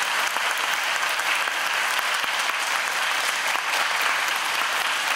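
Audience applauding: steady, even clapping from many hands.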